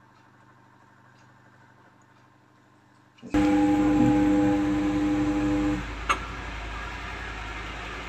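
Polytron PAW-7005 top-loading washing machine running on its new universal control module: after a faint hum, the wash motor starts suddenly about three seconds in with a loud steady hum and water churning in the tub. It eases off a couple of seconds later, a single click follows, and it runs on more quietly.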